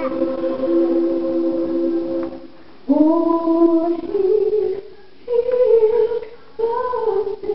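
Gospel choir singing: a held chord that breaks off about two and a half seconds in, then, after a short pause, three short sung phrases.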